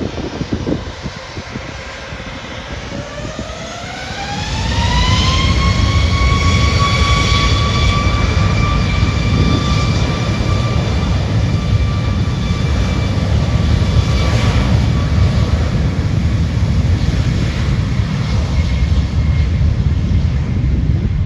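Boeing 737 MAX 8's CFM LEAP-1B turbofan engines spooling up to takeoff thrust. A whine rises in pitch over a couple of seconds and then holds steady, while a loud low rumble sets in about four seconds in and carries on through the takeoff run.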